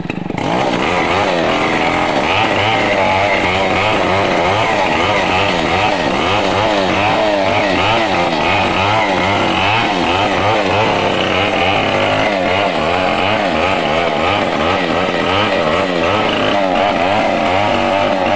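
Stihl chainsaw running at high throttle, its engine pitch wavering up and down over and over as the chain bites into the wood.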